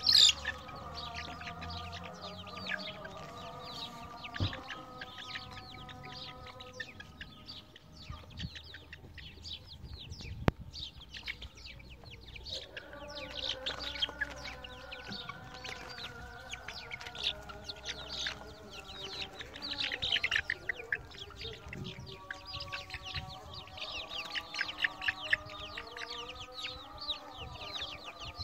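A flock of young chickens peeping and chirping continuously, many short high calls overlapping, over lower steady held tones that change pitch every few seconds.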